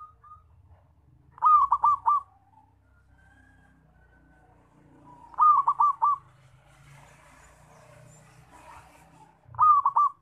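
Zebra dove (perkutut) cooing: three loud phrases about four seconds apart, each a quick run of about four short notes.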